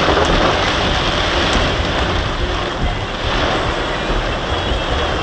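Storm wind and rain making a loud, steady rush, with wind rumbling on the microphone.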